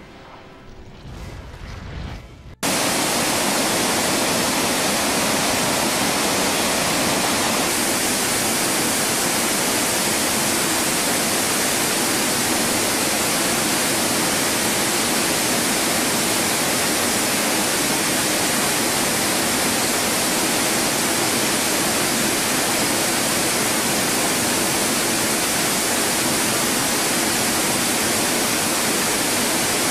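Water spilling over a wide river weir: a loud, steady rush of falling water that cuts in suddenly about two and a half seconds in.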